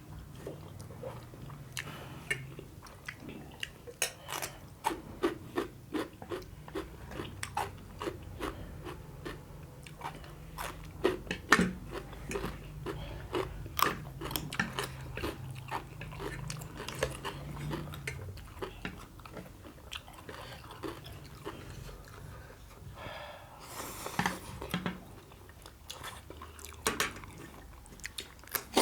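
Close-miked eating: biting and chewing king crab, with many sharp cracks and clicks from the shell between the chews.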